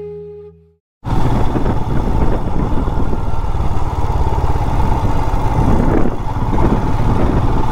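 Background music fades out, and about a second in a motorcycle engine cuts in, running steadily under a loud, even hiss of noise.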